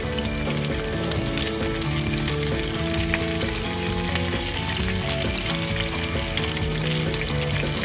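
Two whole grunt fish and cherry tomatoes searing in hot oil in a frying pan: a steady, dense sizzle and crackle.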